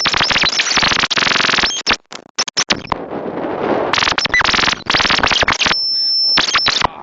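Strong, gusty wind buffeting the microphone in loud, irregular blasts, with a brief lull about two seconds in.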